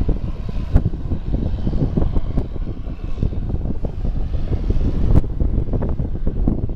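Aircraft engines rumbling steadily, with many irregular low thumps and crackles over the rumble.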